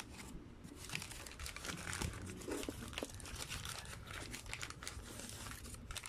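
Paper burger wrapper crinkling and rustling as it is handled and folded by hand, in a dense run of irregular crackles.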